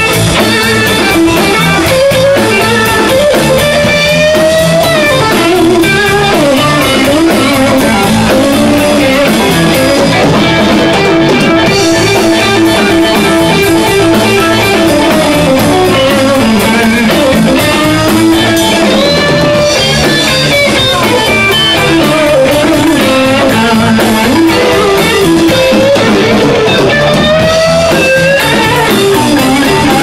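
Live blues band playing an instrumental stretch: electric guitar lead with bent, sliding notes over bass and a drum kit.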